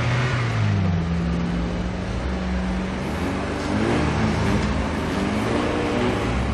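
Engine of a GAZ-66 military box-body truck running as it drives slowly through snow, its pitch shifting up and down, with other off-road vehicle engines idling.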